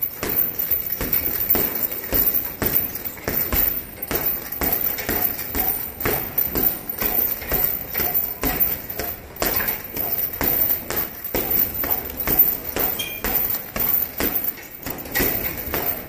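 Boxing gloves punching a hanging heavy bag in a fast, irregular flurry, several blows a second.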